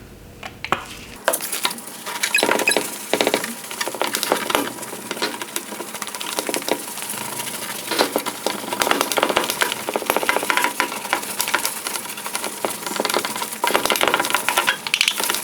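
Hand rubbing lens clarifying compound over a plastic headlight lens with a cloth: a dense, scratchy wiping sound full of small clicks, starting about a second in.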